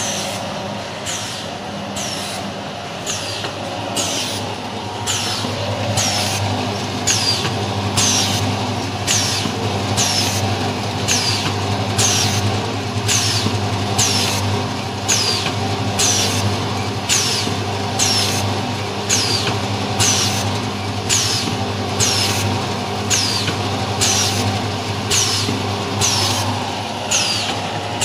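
Vertical form-fill-seal packing machine running, making triangle sachets. A short sharp stroke with a brief falling high whistle repeats about once a second, one per sachet cycle, over a steady motor hum.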